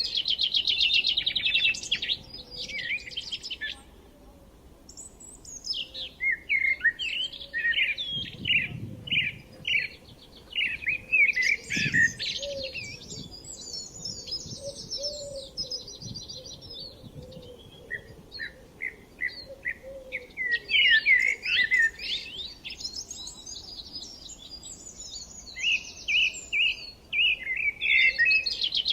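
Songbirds singing and chirping in overlapping phrases, with fast trills and sweeping whistled notes. The singing thins out briefly about four seconds in and then builds again.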